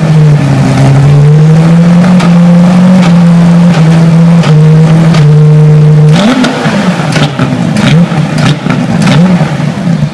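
Porsche 911 GT3 Cup race car's flat-six engine running loud at a steady raised speed, then revved up and down in quick blips over the last few seconds.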